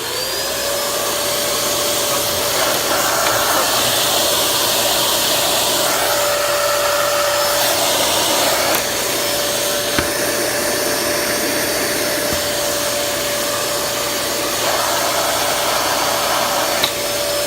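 Dyson DC23 canister vacuum cleaner switched on: the motor spins up within a second to a steady high whine and runs loud with full suction, while the turbine brush head's brushes stay still. Two sharp clicks, about ten seconds in and near the end.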